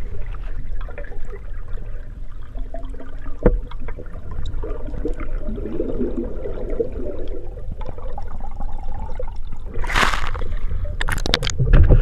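Water movement on a spearfishing camera: a low rumble with gurgling and bubbling, a short rushing burst about ten seconds in, then a few sharp splashes near the end.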